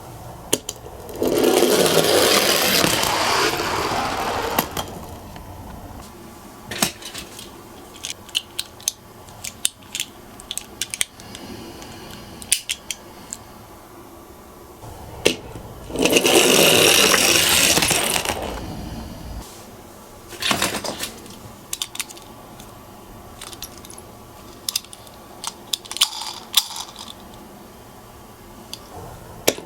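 Toy minicars rolling down a sloped track: two long rolling rattles, one near the start and one about a third of the way in, with many sharp clicks and clacks of the little cars knocking and being set down in between.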